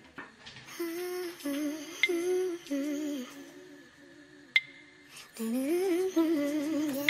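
A soft melody hummed in phrases, pausing for a couple of seconds past the middle, with two sharp clicks about 2 and 4.5 seconds in.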